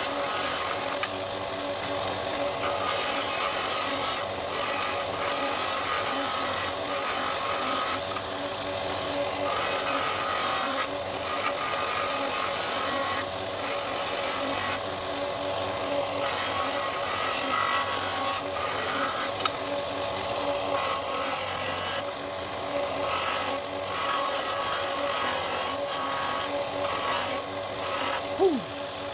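Benchtop disc sander running steadily while a dark wood ring blank is pressed against the spinning sanding disc to shape the outside of the ring; the scratchy sanding swells and eases as the piece is pressed on and turned. A short knock near the end.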